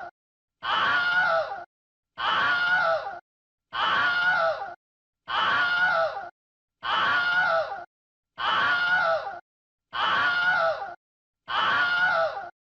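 A human scream sound effect looped: the same scream, about a second long, repeats roughly every one and a half seconds with a short dead-silent gap between, eight times over.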